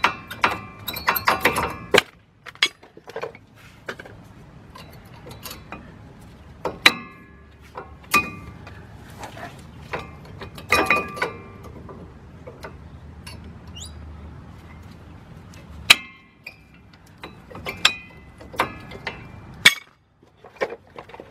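Old front brake pads being worked loose and pulled out of the caliper bracket of a 2005 Ford Ranger: irregular metallic clicks and clinks of the pads' steel backing plates and clips against the bracket, some with a short ring.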